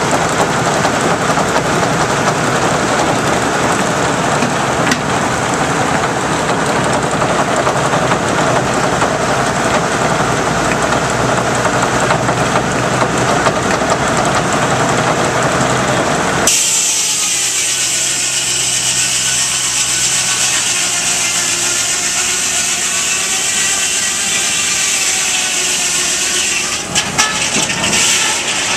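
Sawmill driven by a Russell steam traction engine, its saw running and cutting wood. About halfway through, the sound changes abruptly from a dense rushing noise to a high, wavering whine.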